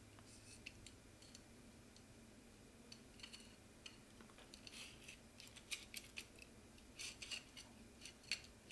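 Faint light clicks and small metal-on-metal contacts as an aluminium extrusion and an MGN linear rail with its carriage are handled, a scattering of them from about three seconds in, against near silence.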